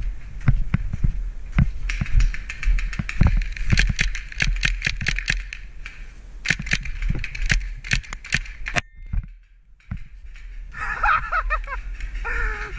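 Paintball markers firing: single pops, then fast strings of shots, over low wind rumble on the helmet camera. Voices call out near the end.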